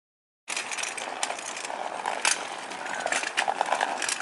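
A child's bicycle with training wheels rolling over a concrete sidewalk, rattling with many sharp clicks. The sound starts suddenly about half a second in.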